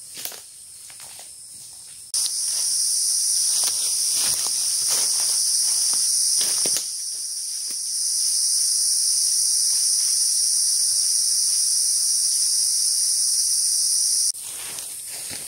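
Cicadas in a tropical forest calling in a loud, steady, high-pitched drone that switches on suddenly about two seconds in, eases off briefly midway, and cuts off suddenly near the end. Faint scattered steps and clicks sound beneath it.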